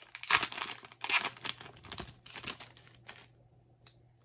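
Foil wrapper of a Pokémon Fusion Strike booster pack crinkling and tearing as it is pulled open by hand, in a quick run of rustles that die away after about three seconds.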